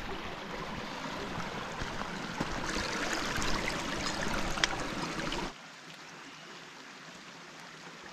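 Shallow water running over the rocks of a small creek bed, a steady rushing hiss that drops abruptly to a quieter level about five and a half seconds in.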